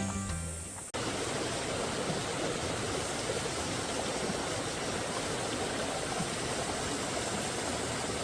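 Rushing water of a mountain stream, a steady even wash that starts with a cut about a second in, as the tail of background music ends.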